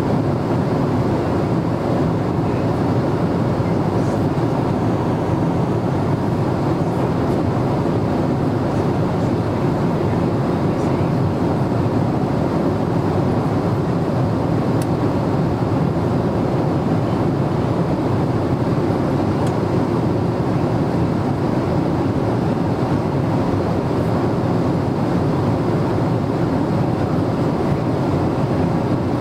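Steady in-flight cabin noise of a Boeing 777-300ER: a constant, even rush of airflow and engine drone heard from inside the passenger cabin.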